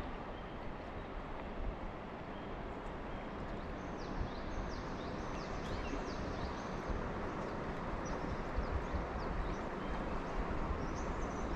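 Steady rush of river water, with a small bird calling over it in short, quick, falling chirps, most thickly through the middle and again near the end.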